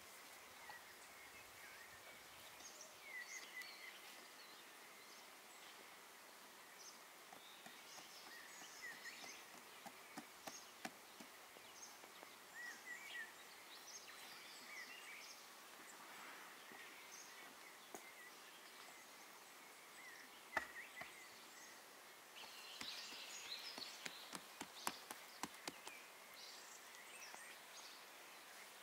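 Faint rural outdoor ambience: scattered short bird chirps over a steady hiss, with a few light clicks and taps that come more often in the last several seconds.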